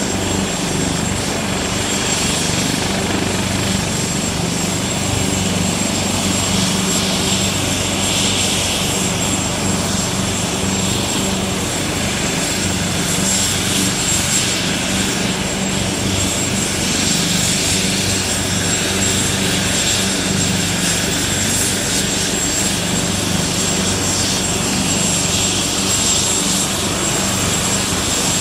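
AgustaWestland AW139 twin-turbine ambulance helicopter running on the ground with its rotors turning, a steady high turbine whine over the low, even hum of the rotor and engines, waiting before lift-off.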